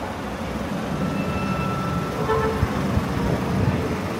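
A motor vehicle passing at low speed through a street, its low rumble swelling for a few seconds, with a faint brief high squeal about a second in.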